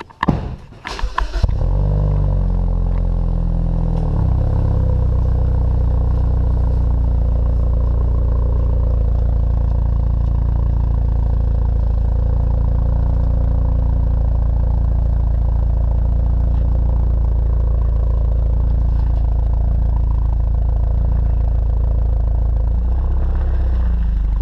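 BMW Z4 sDrive20i's turbocharged 2.0-litre four-cylinder, heard right at its twin exhaust tips: about a second of uneven starting noise, a brief flare that settles over the next couple of seconds, then a steady idle.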